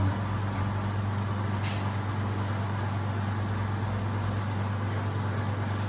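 A steady low machine hum that holds at an even level, with one faint tick about two seconds in.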